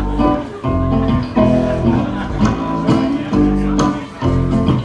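Acoustic guitar strummed and an upright double bass plucked, playing live as an instrumental intro with a walking bass line under rhythmic chords.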